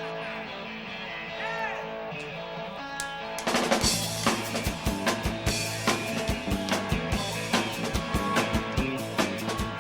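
Live rock band playing a song's instrumental intro: held guitar notes, then the drum kit and bass come in about three and a half seconds in with a steady beat.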